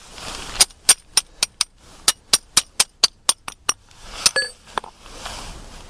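Hammer striking a steel setting tool down into a metal anchor sleeve in concrete: a quick run of sharp metallic clinks, about four a second, with a short break after the first five, then one harder blow about four seconds in that rings. This is the anchor being set for an anchor bolt.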